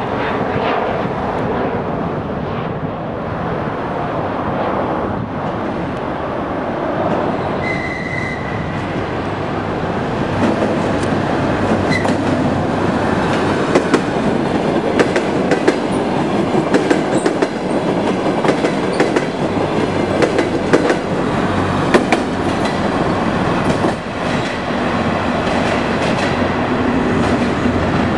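DR1A diesel multiple unit running past on the line, its diesel engine and wheels sounding steadily. Through the middle of the passage the wheels click over rail joints as the carriages go by.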